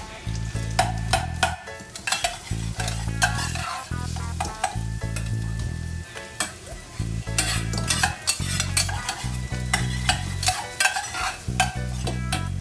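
A metal spoon stirring and scraping food frying in a small pan, with repeated sharp scrapes and clicks against the pan over a steady sizzle.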